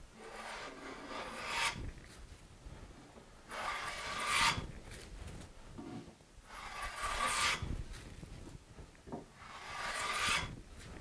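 Wooden hand plane taking four passes along a board, each stroke about a second of shaving noise that swells toward its end and then stops, roughly three seconds apart.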